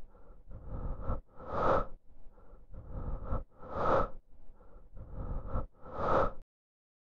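A soundtrack effect of soft, hissy pulses, a few small ones building to one louder swell, repeating three times about every two seconds and then cutting off suddenly.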